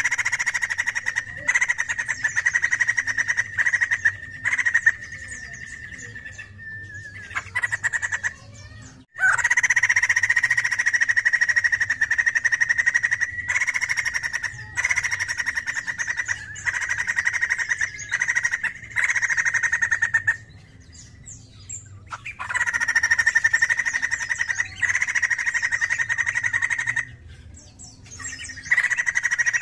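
White-crested laughingthrush singing: long runs of fast, rattling repeated notes lasting several seconds each, broken by short pauses.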